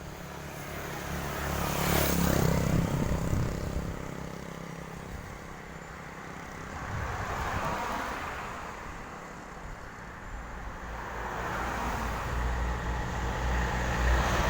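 Road traffic passing close by: a loud vehicle goes past about 2 seconds in, its pitch dropping as it passes, a quieter one follows around the middle, and a third approaches near the end.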